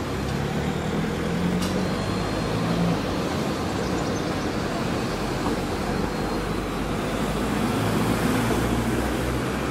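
Steady road-traffic noise, with the low engine hum of a passing vehicle about a second in and another near the end.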